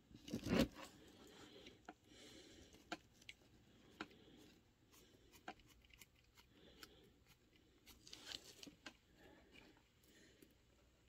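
Faint, scattered clicks and light scrapes of small metal and plastic parts being handled and worked with a small screwdriver on a micro RC crawler chassis, with a louder handling noise about half a second in.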